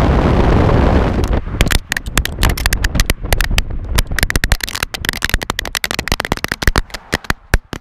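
Heavy wind rushing over a GoPro's microphone, cutting off about a second and a half in; then a fast, irregular clatter of knocks and scrapes as the GoPro tumbles and bounces along the asphalt after flying off the back of the moving car.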